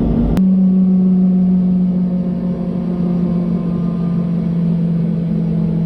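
Helicopter running down during shutdown on the ground, with the clutch disengaged. About half a second in, the low rumble drops away and a steady hum sets in, sinking slowly in pitch.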